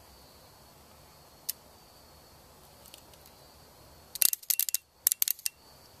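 A faint click about a second and a half in, then a quick run of sharp clicks about four seconds in: 12-volt coil relays switching on and off as contact is made and broken on the test wires.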